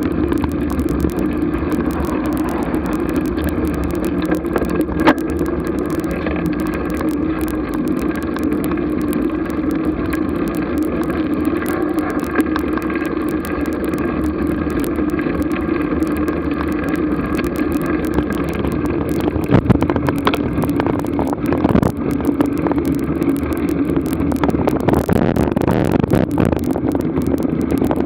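Steady wind and road noise picked up by a Garmin VIRB action camera on a vehicle moving slowly, at about 15 km/h, with a constant hum throughout. A few sharp knocks come about twenty seconds in.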